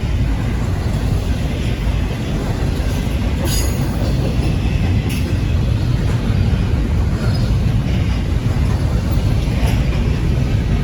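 Slow-moving Norfolk Southern intermodal freight train rolling past, its wheels on the rails making a steady low rumble. A couple of short, sharp metallic clanks or squeaks come about a third of the way in and again near the middle.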